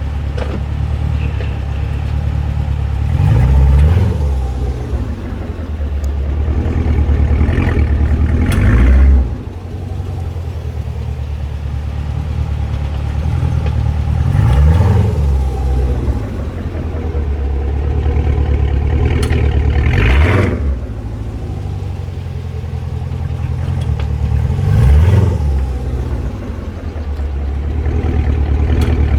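Chevrolet Camaro (5th generation) idling and pulling away again and again, the engine revving briefly every five to six seconds, with sharp clicks from the rear axle area as the car takes up drive. The owner suspects the rear hub: a CV axle nut needing to be torqued, a worn thrust washer, or axle splines rubbing.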